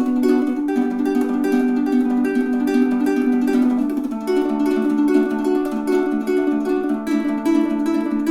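Tenor ukulele in re-entrant baritone tuning (dGBE with a high D), played as a steady rhythm of strummed chords that change every second or two.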